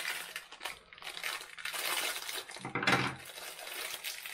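Rustling, crackling and light clatter of packaged plasters and first-aid supplies being handled and put into a small wooden box, with a louder clatter about three seconds in.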